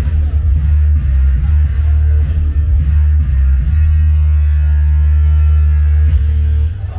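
Loud dance-show music with a heavy bass beat; about four seconds in the beat drops away under a long held bass note, which cuts off shortly before the end.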